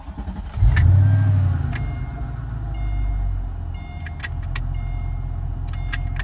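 A low, steady motor hum in the car starts abruptly about half a second in and keeps running. Over it come repeated sharp clicks as the console roof switch on the Mercedes SL is pulled, and two short chimes; the folding roof does not respond.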